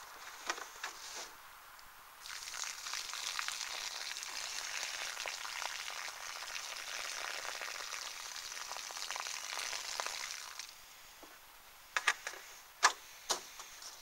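Water pouring in a thin steady stream from a plastic jug and splattering onto dry fallen leaves. It starts about two seconds in and stops about ten and a half seconds in. A few sharp crackles of leaves follow near the end.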